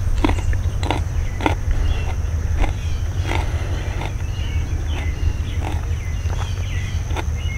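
Steady high-pitched insect chirring over a low rumble, with soft irregular clicks about once a second.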